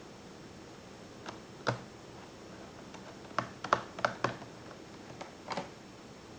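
Small sharp clicks and knocks, about eight to ten of them, several bunched close together in the middle, from laptop parts and small tools being handled.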